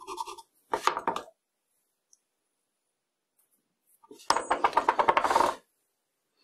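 Small metal lathe parts clinking and clattering as they are handled on a hard surface: a short clatter about a second in, then a louder, denser rattle of rapid clicks about four seconds in.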